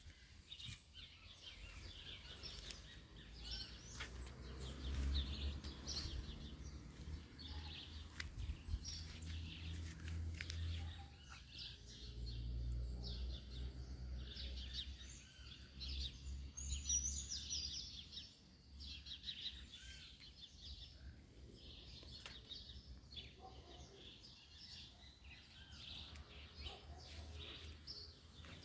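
Many small birds chirping and calling at once, with short repeated chirps and trills overlapping throughout. A low rumble comes and goes underneath.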